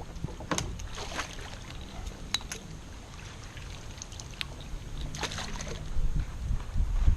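Scattered clicks, taps and knocks of gear being handled aboard a kayak, over a low rumble, with a cluster of louder knocks near the end.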